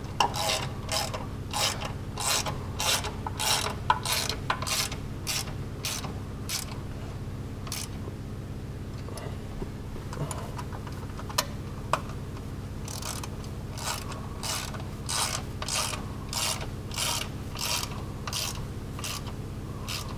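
Hand ratchet clicking in quick back strokes, about three a second, as bolts on an aluminum skid plate are tightened. Two runs of strokes with a short pause and a few single clicks in between.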